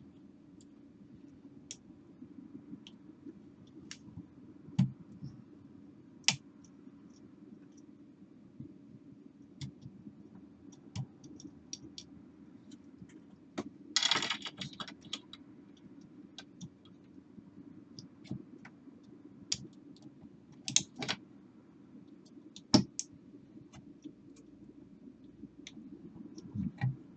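Small clicks, taps and scrapes of a jeweller's screwdriver and fingers working on the plastic and metal parts of a CD changer's optical pickup mechanism while glue is cleaned off and a little cover is removed. There are brief louder scrapes about halfway through and again about three-quarters through. A low steady hum runs underneath.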